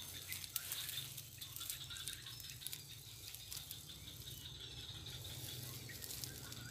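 Faint rattling and rustling of dry stems as a bird caught in a ground snare flaps and struggles, with scattered light clicks.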